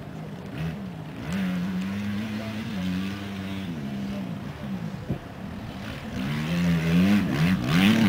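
Yamaha YZ250F four-stroke motocross bike engine revving across the track, its pitch holding, then climbing and dropping as the rider works the throttle through the gears. Near the end it gets louder and the revs rise and fall more quickly.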